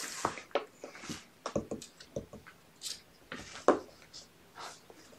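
Kittens' claws scrabbling and tapping on a plastic scale tray: scattered light clicks and scratches, with a sharper knock of the tray about two-thirds of the way through.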